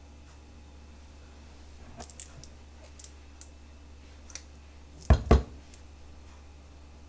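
A few light clicks and taps, then two loud sharp knocks about a quarter of a second apart, over a steady low hum.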